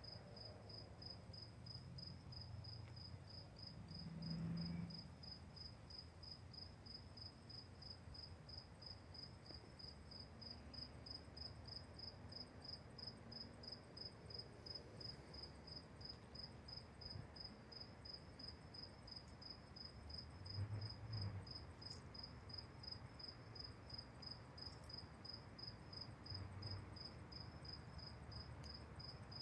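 A cricket chirping steadily and faintly, one high even pitch repeated about twice a second.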